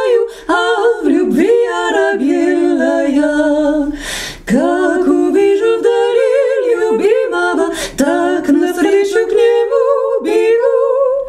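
A woman singing a slow melody unaccompanied, with vibrato on the held notes; she takes an audible breath about four seconds in.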